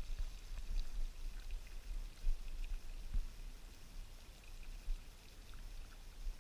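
A boat's bilge pump discharging water overboard: a steady pouring, splashing stream.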